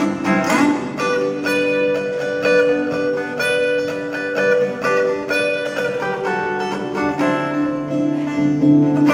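Live acoustic guitar playing an instrumental passage of a folk song, a quick run of plucked notes over sustained lower notes, without singing.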